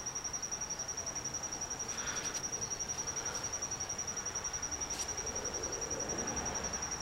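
Crickets chirping: a steady high-pitched trill pulsing about eight times a second, with a couple of faint clicks from handling small metal parts.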